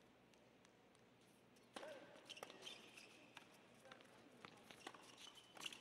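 Tennis rally in indoor doubles play: a few faint ball bounces before the serve, then the serve nearly two seconds in and racket strikes about a second apart, with shoes squeaking on the hard court between shots.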